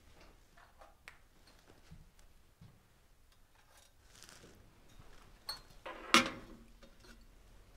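Communion glasses and tableware being handled on a small table: a few light clicks, then one sharp knock with a short ring about six seconds in as something is set down on the tabletop.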